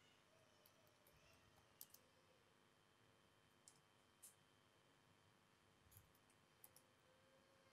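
Near silence: room tone with faint, irregular clicks from a laptop in use.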